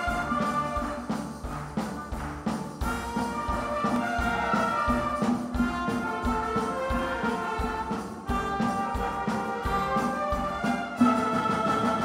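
Youth orchestra playing: sustained strings and winds over a steady beat from congas and other percussion.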